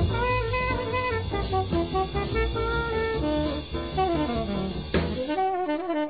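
Up-tempo 1950s jazz: a tenor saxophone plays a fast melodic line over bass and drums. About five seconds in, the bass and drums drop out and the horn carries on alone.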